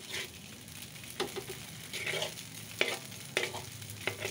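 Metal spatula scraping and knocking against a wok in strokes roughly a second apart, over the steady sizzle of noodles frying in oil.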